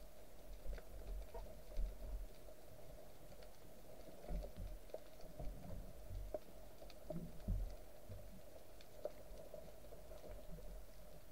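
Faint underwater ambience heard through a camera's waterproof housing: scattered small clicks and crackles with low, muffled thumps of water movement over a faint steady hum.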